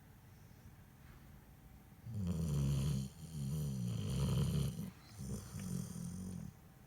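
German shepherd snoring in its sleep: two long, loud snoring breaths with a rattling, buzzing pitch, the first starting about two seconds in.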